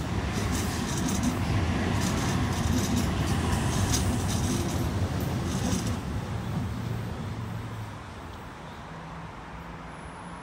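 Sydney Trains OSCar (H set) electric multiple unit running past close by: a low rumble of wheels on rail with rapid clicking. It fades after about six seconds as the last carriage goes by and the train draws away.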